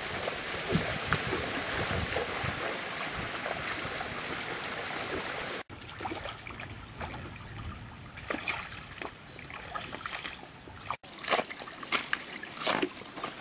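Shallow stream running over stones, with feet wading and splashing through the water. About five and a half seconds in the flow drops to a quieter trickle, and separate small splashes and knocks stand out.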